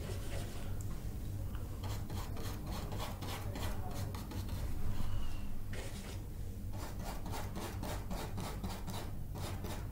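Paintbrush rubbing oil paint onto a canvas in quick, repeated scratchy strokes, with a short spell of working paint on the palette partway through. A low steady hum runs underneath.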